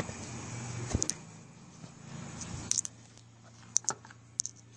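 Light, sharp clinks and clicks of a metal fork against the plate and fruit as marang flesh is picked apart, coming in pairs a second or so apart, over a low steady hum.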